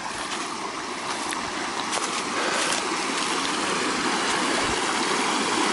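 Orange mine drainage water flowing out of the ground and running off: a steady rush of water that grows a little louder over the first couple of seconds.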